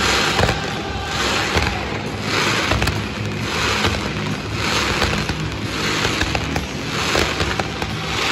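Ground-launched fireworks shooting up in repeated volleys, a rushing hiss about every second, with sharp cracks and pops scattered among them.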